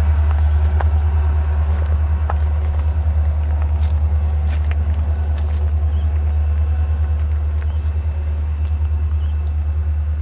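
EMD diesel locomotives led by an SD40T-2, their 16-cylinder two-stroke engines making a steady, throbbing low drone that slowly fades toward the end, with a few faint clicks.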